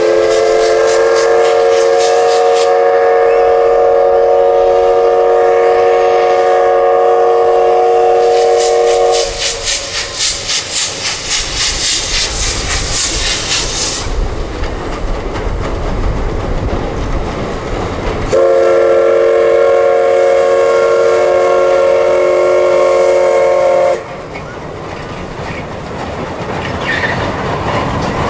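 C11 steam locomotive blowing its steam whistle in one long chord for about nine seconds, then working hard with rapid, even exhaust chuffs. A second long whistle blast sounds later and cuts off sharply, followed by the steady rumble of the train rolling on.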